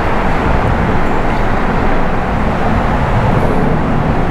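Steady rumble of road traffic on the concrete bridge overhead, heard from beneath the deck.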